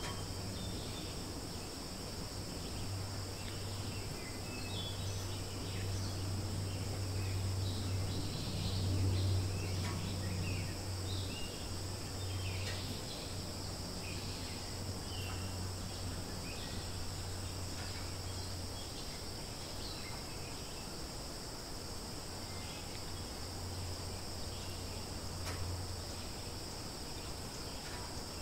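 A steady, high-pitched insect chorus of crickets or cicadas, held at two pitches, with scattered short chirps. Underneath runs a low hum that swells about ten seconds in and again near the end.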